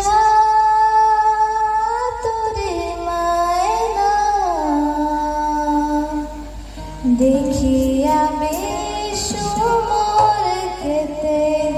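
A girl singing solo into a microphone, amplified through a PA, holding long notes that slide from one pitch to the next. The line breaks off briefly about halfway through, then a new phrase begins.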